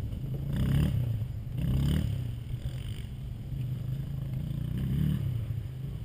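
A 450cc off-road machine's engine revving in three short bursts, about a second in, around two seconds in and near five seconds, over a steady engine idle. Loud.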